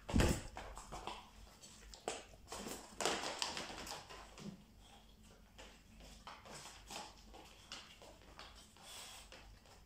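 A Staffordshire bull terrier's feet in dog boots tapping and scuffing on a wooden floor as it walks and trots about, in irregular steps, with a heavier thump right at the start.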